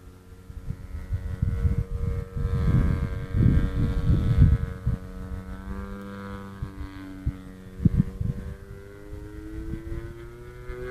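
Radio-controlled Yak 55 model aerobatic plane's engine droning overhead, its pitch sliding as the plane manoeuvres and rising near the end. Wind gusts rumble on the microphone, loudest a few seconds in.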